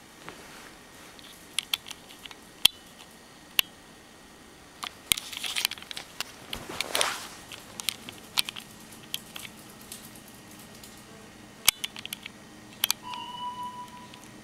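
A dog digging: irregular clicks and scratches of claws, with a longer burst of scraping about five to seven seconds in. A short steady high tone sounds for about a second near the end.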